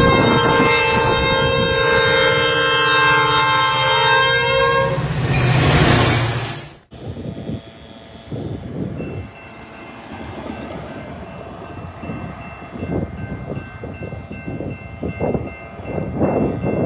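A loud held chord of many steady notes, swelling into a rush of noise and cut off abruptly about seven seconds in. Then a train's low rumble with wheel clatter and knocks, a steady high-pitched squeal joining in, growing louder near the end.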